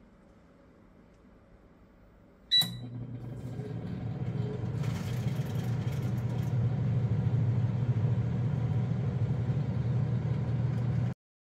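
Digital air fryer beeping once as it is started at 180 degrees, then its fan and heater running with a steady low hum that builds over the first few seconds. The hum cuts off suddenly near the end.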